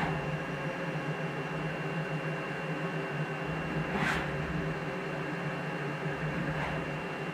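Small CNC milling machine humming steadily with several stacked tones while it runs an automatic touch-probe calibration routine, with a sharp click about four seconds in and a fainter one near the end.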